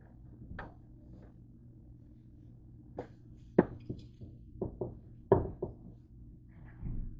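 Knocks and taps from wiping and pressing a paper towel against the plates and lid of a George Foreman electric grill: quiet at first, then a quick run of sharp knocks halfway through, two of them loud, and a duller thump near the end. A steady low hum runs underneath.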